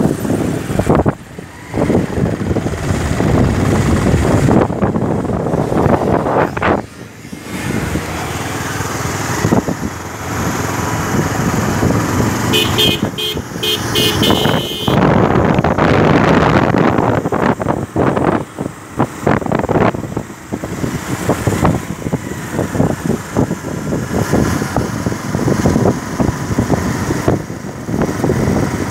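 Motorcycle riding down a road, its engine running under wind buffeting the microphone. About halfway through, a vehicle horn beeps rapidly several times for about two seconds.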